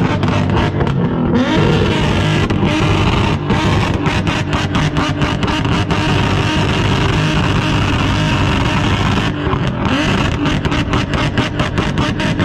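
Loud car engine revving, its pitch rising and falling in the first second or so, then held at high revs with a rapid stutter near the end.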